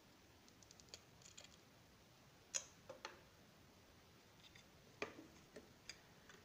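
Near silence with a few faint plastic clicks and taps from a multimeter's battery cover and case being handled and pried open, the sharpest about two and a half seconds in.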